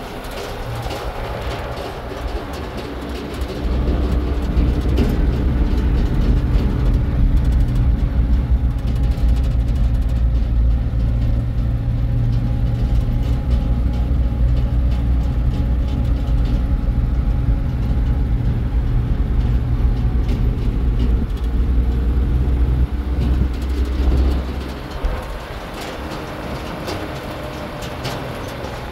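An old vehicle's engine and road noise while driving, heard from inside the cab as a steady low drone. It grows louder at about four seconds in and eases back a few seconds before the end.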